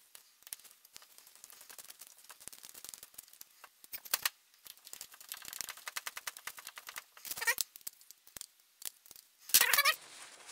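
A T-handle driver turning the case bolts into a small two-stroke engine's crankcase, with light metal clicking and the crinkle of the plastic bag under the engine. Near the end comes a louder clatter as the driver is put down on the bench.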